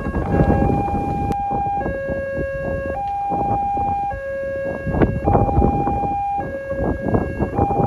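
Railway level-crossing warning alarm sounding, an electronic two-tone signal that alternates between a higher and a lower pitch about once a second. It signals that the barriers are down for an approaching train.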